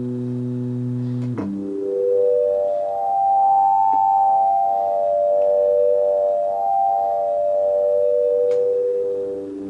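Unfiltered direct output of a CZ-1 phase-distortion synthesizer chip holding one low note. After a click about a second and a half in, its tone sweeps slowly brighter and darker in waves, a bright overtone climbing and falling. It settles back to a duller tone near the end.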